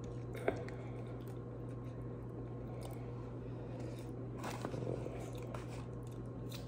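Light tabletop handling noises: a small plastic sauce cup set down with a sharp click about half a second in, then soft tapping and rustling around four and a half to five seconds in, over a steady low hum.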